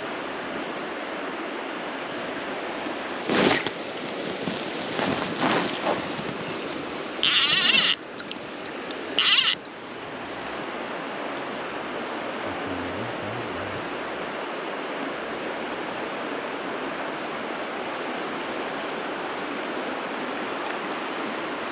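River water flowing steadily. In the middle come a few short, sharp noises, the loudest two brief loud high-pitched rushing sounds about 7 and 9 seconds in.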